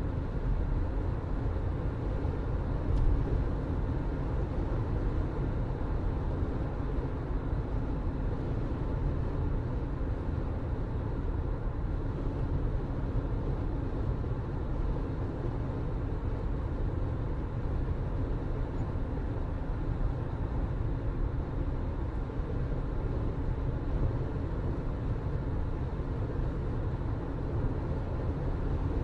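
Steady low rumble of a vehicle in motion, continuous and even throughout.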